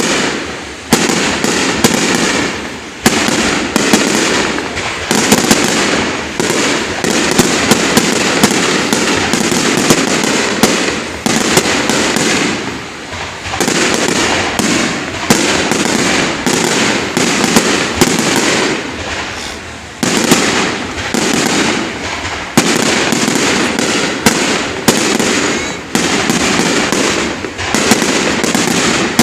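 Fireworks going off in rapid, unbroken succession: dense crackling peppered with sharp bangs, easing off for a moment a few times before building again.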